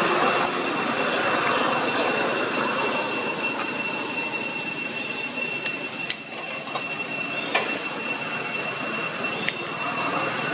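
Steady high-pitched drone of insects, several shrill tones held without a break, over a soft outdoor hiss. A few sharp clicks come in the second half.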